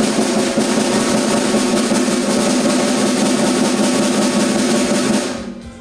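Drum kit played loudly in a fast, unbroken roll that stops abruptly about five seconds in.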